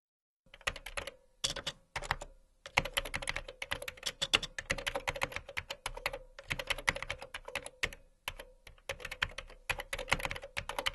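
Typing on a computer keyboard: quick runs of key clicks broken by short pauses, a sentence being typed out.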